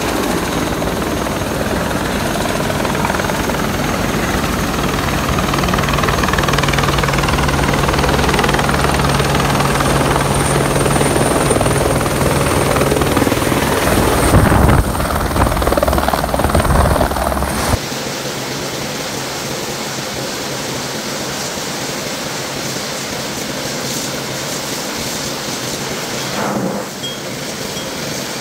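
Helicopter flying in and landing, its rotor chop and turbine growing louder and loudest as it comes close over the pad. About 18 s in the sound cuts abruptly to a quieter, steady hum of aircraft engines at the airfield.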